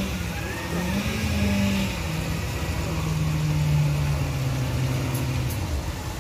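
A vehicle's low motor hum that rises briefly in pitch, then slides slowly down, over a steady background noise.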